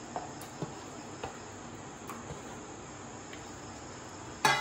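Soft wet taps as raw chicken pieces are dropped by hand into a plastic bowl, over a steady high-pitched chirring. Near the end comes a sharp metallic clank with a brief ring as a steel plate is handled and set down.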